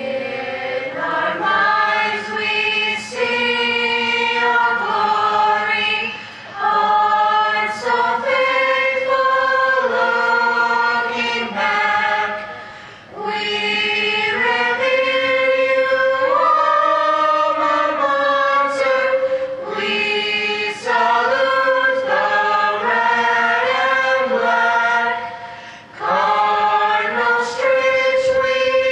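A high school chorale of mixed voices singing unaccompanied in held chords, phrase by phrase, with short breaks for breath about every six to seven seconds.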